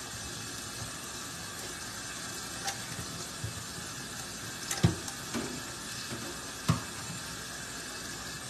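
Kitchen tap running into a stainless-steel sink while small puppy bowls are rinsed under it. A few knocks as the bowls are handled, the loudest a little past halfway.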